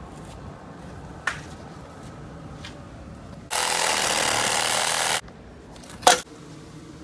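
Milwaukee Fuel cordless reciprocating saw running for about a second and a half, its blade cutting through an old buried pipe. Near the end comes a short sharp scrape of a shovel digging into sand.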